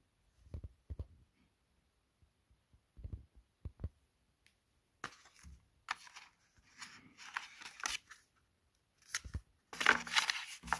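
Handling noise from a Samsung Galaxy S22 Ultra's cardboard retail box and inner tray: a few dull knocks in the first four seconds, then cardboard rubbing and scraping, loudest near the end.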